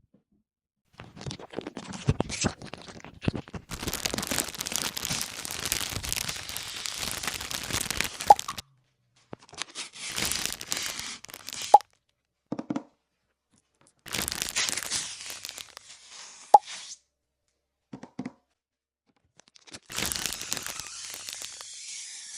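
Packaging being handled and torn open, with crunching, tearing and crinkling in several separate bursts. A few short sharp pops come between them.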